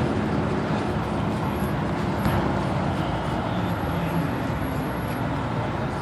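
Steady cabin noise inside a 2007 Blue Bird Vision school bus, with its CAT C7 diesel engine running.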